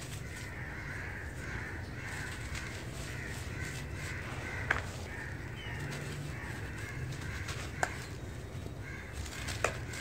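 Dry red dirt blocks crushed and crumbled between bare hands, powder and grit pouring back into the basin, with three sharp crunches near the middle and end. A rasping, pulsing chatter sits behind it.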